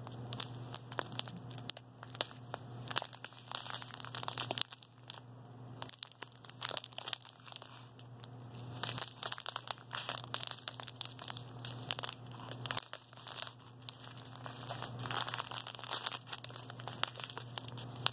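Clear plastic bags of diamond-painting drills crinkling irregularly as they are picked up and handled one after another.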